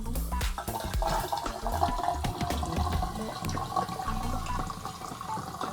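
Water running steadily from a newly installed Kohler Maxton bathroom faucet into the sink.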